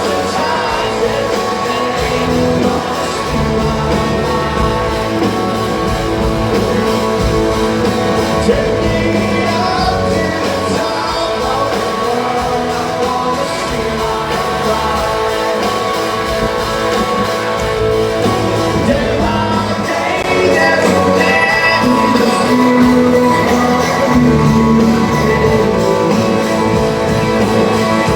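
Live rock band playing with a male lead vocal, heard in a large hall, guitars and drums steady throughout and a little louder about two-thirds of the way in.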